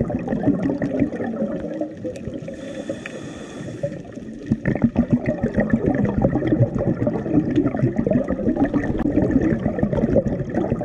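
Underwater recording through a GoPro housing: a scuba diver's exhaled bubbles rumbling and crackling in muffled bursts. A brief, quieter hiss comes about three seconds in, then the bubbling returns.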